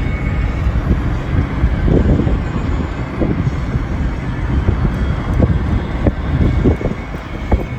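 A moving vehicle's steady low road rumble, with wind buffeting the microphone.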